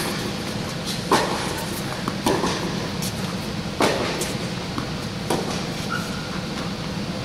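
Tennis balls struck back and forth in a racquet rally on an indoor court: four sharp pops about a second and a half apart, over a steady low hum.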